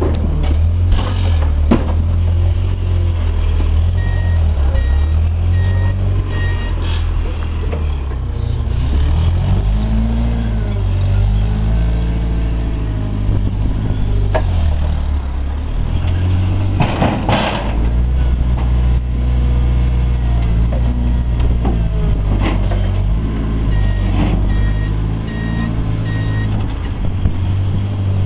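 Propane forklift engine running, revving up and down as it lifts and moves a steel dumpster. Its reversing alarm sounds two short runs of beeps, and a few metal clanks and bangs come through, the loudest about two-thirds of the way in.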